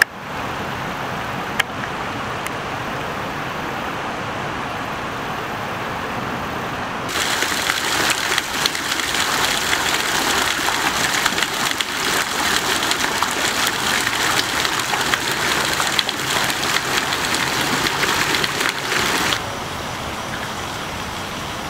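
Water from a fountain's falling jets splashing into its stone basin: a dense, crackling hiss that swells in about seven seconds in and drops away sharply near the end. Under it is a steady lower hum of noise, with a single sharp click near the start.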